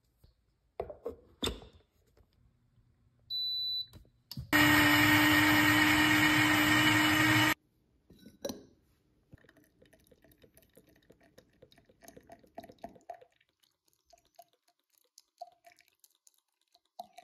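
Nutr countertop blender-maker: two clicks, then a short beep about three seconds in, then its motor blending at a steady pitch for about three seconds before cutting off abruptly. A clink and faint handling noises follow.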